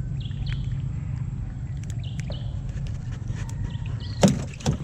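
A steady low motor hum, with a bird repeating a short two-part high chirp about every two seconds. A loud knock sounds near the end.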